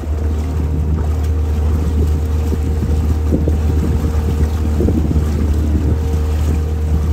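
Motor of a small flat-bottomed canal tour boat (jikkokubune) running steadily as the boat cruises: an even low hum with a steady higher drone above it.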